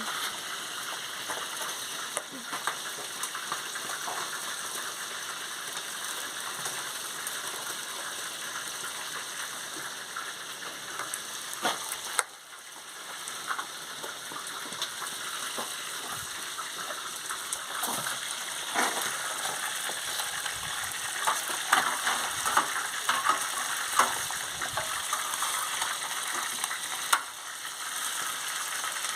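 Fish frying in hot oil: a steady sizzle with frequent crackles and sharp pops, busier in the second half.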